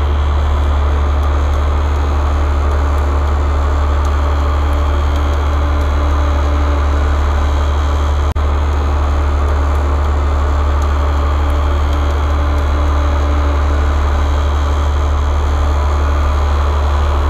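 Heavy diesel engine of a tow truck idling steadily, a deep even hum, with one short click about halfway through.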